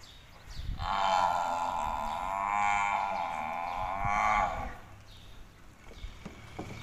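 Cattle mooing: one long moo with a wavering pitch, starting about a second in and lasting nearly four seconds.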